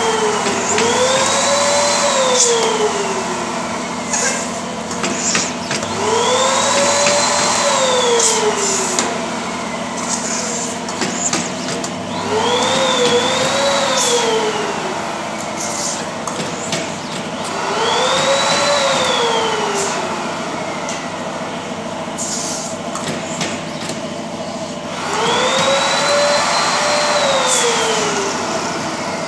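Pneumatic balloon printing machine cycling: about every six seconds a rush of compressed air with a squealing tone that rises and then falls, as air passes through a rubber balloon's neck on the machine's nozzles. A steady hum runs underneath, with scattered sharp clicks.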